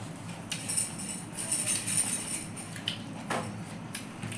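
Light jingling clinks and scraping of stainless steel plates and bowls as rice is mixed and eaten by hand, with one sharper knock a little after three seconds in.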